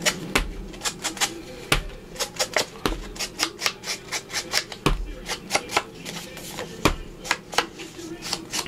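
An ink blending tool dabbed quickly and repeatedly against the edges of a cardstock tag and an ink pad, a run of short, soft taps about three to four a second.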